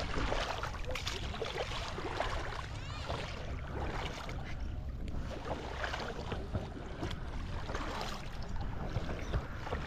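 Shallow water sloshing and splashing in uneven strokes.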